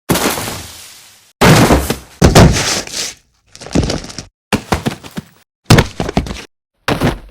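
Recorded fight sound effects: a string of about six punch, kick and body-hit impacts, each a short cluster of hits with brief silences between them. The first hit trails off in a long fading hiss over about a second and a half.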